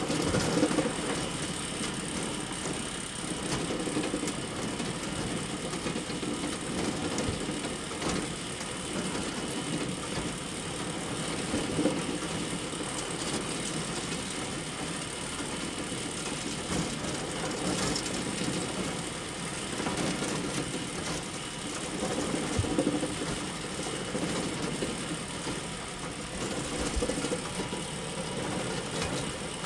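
Bale elevator running steadily: a continuous mechanical rattle and clatter that swells now and then, with an occasional sharp click.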